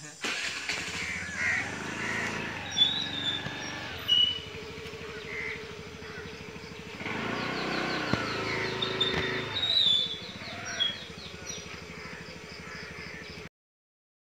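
Crows cawing and other birds calling over a steady background noise, with a few sharper, louder sounds; it cuts off suddenly near the end.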